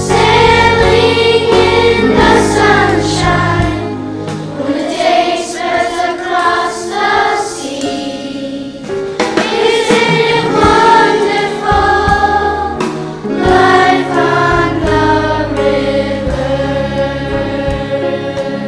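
A group of children singing a song together as a choir, over instrumental accompaniment.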